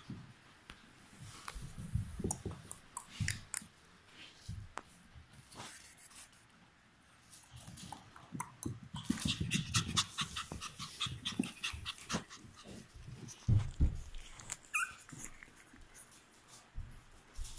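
Two Chihuahua puppies play-wrestling: scuffling and quick clicks and knocks, with dog panting and breathing, and a few loud dull thumps a little past the middle.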